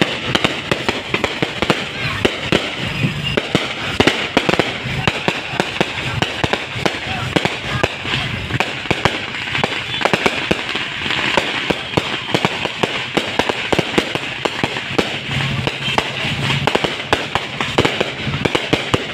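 Fireworks and firecrackers going off in a dense, continuous barrage of rapid pops and crackles.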